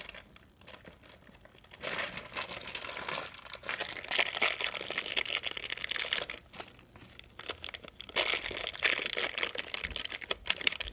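Small plastic wrapper bag from an LOL Surprise toy ball crinkling as it is handled and pulled open. It comes in uneven bursts, with a short lull about two-thirds of the way through.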